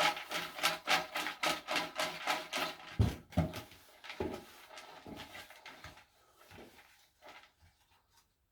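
Raffle tickets being mixed for the drawing: a rhythmic swishing about three strokes a second that stops about three seconds in. A few low knocks follow, then fainter rustling that fades out.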